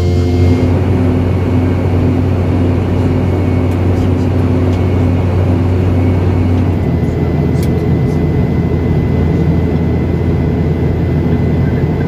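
Steady cabin noise of a Boeing 717 in cruise, heard inside the cabin: a deep drone from its rear-mounted turbofans under a continuous rush of air. The low hum changes slightly about seven seconds in.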